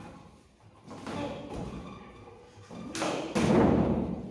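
Thuds of a Muay Thai bout, the loudest about three seconds in as a fighter goes down onto the ring canvas.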